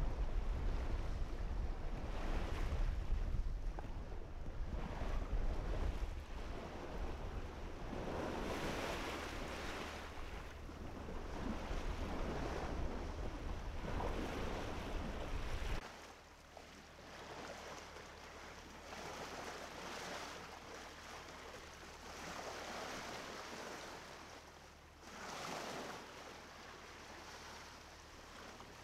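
Water sloshing and splashing against the hull of a small tugboat under way, rising and falling in swells every few seconds. A heavy low rumble, with wind on the microphone, runs under the first half and stops suddenly about halfway through.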